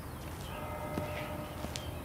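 Hard-soled shoes stepping on pavement, a slow walking pace of about one step every 0.7 seconds, over steady outdoor background noise. A faint held tone sounds for about a second in the middle.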